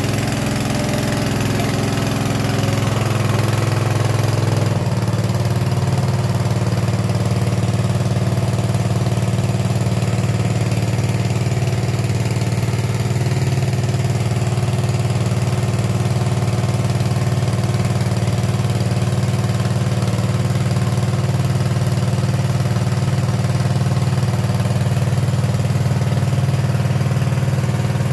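A small engine running steadily at constant speed, its note changing abruptly about five seconds in and then holding steady.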